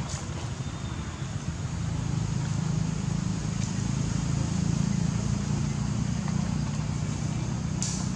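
Steady low drone of a running engine, with a couple of faint ticks near the start and near the end.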